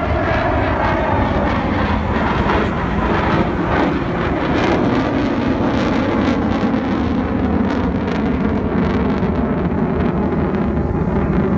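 Eurofighter Typhoon FGR4's twin EJ200 turbofans, a loud, steady jet rumble as the engines are wound back up to high power after a slow pass.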